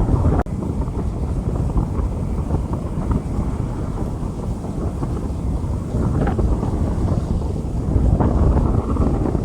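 Rain falling on a street, heard as a steady, dull, rumbling noise with wind buffeting the microphone. The sound drops out for an instant about half a second in.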